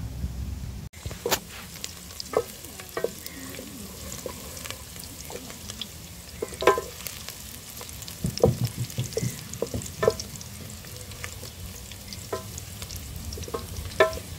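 Sliced red onions frying in hot cooking oil in a large metal pot, sizzling steadily, while a long wooden paddle stirs them. The paddle knocks against the pot's side every few seconds, some knocks ringing briefly.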